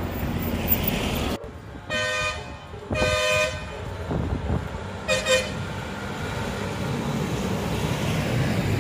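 Train horn sounding three times, over a steady low rumble: two blasts of about half a second, then a shorter one about five seconds in.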